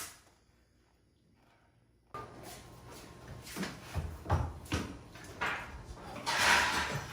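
About two seconds of dead silence, then scattered light knocks and rustling handling sounds from building work, with a louder scraping rush near the end.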